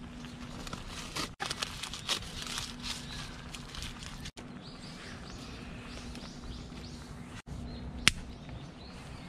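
Aluminium foil crinkling and rustling as it is folded around food by hand, with one sharp click near the end.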